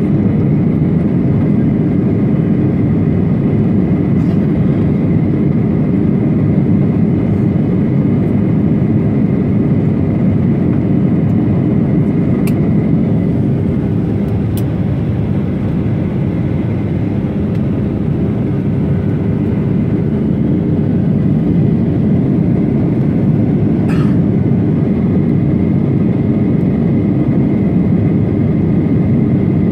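Steady cabin roar of a Boeing 737-800 in flight, heard inside the cabin beside its CFM56-7B turbofan engine: a deep, even rush of engine and airflow noise with a thin steady whine above it. A few faint ticks sound now and then.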